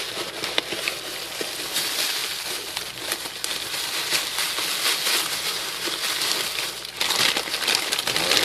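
A parcel being opened by hand: packaging crinkling and rustling with small crackles, louder near the end.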